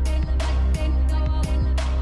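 Background music with a heavy bass line and a steady drum beat.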